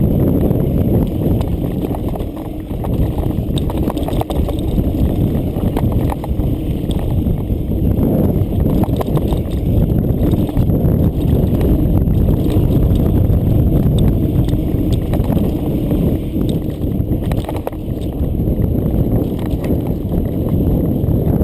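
Mountain bike clattering over a rocky cobbled trail on descent: a steady low rumble with many sharp knocks and rattles from the tyres and frame striking the rocks.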